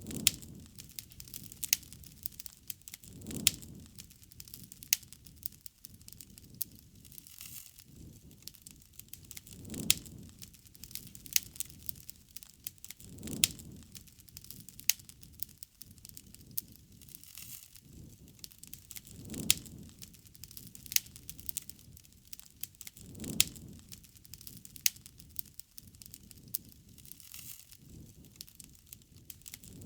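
Wood fire crackling, with many sharp pops and snaps throughout and a low swell of sound every few seconds.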